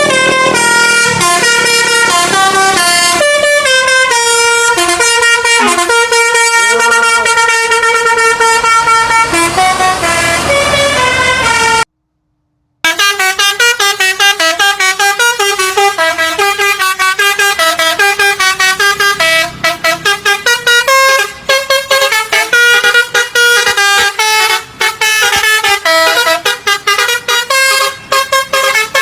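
A bus's telolet basuri multi-tone air horn plays a loud, fast stepping melody. The sound cuts out for about a second near 12 s in. Another horn tune follows, with quicker, choppier note changes.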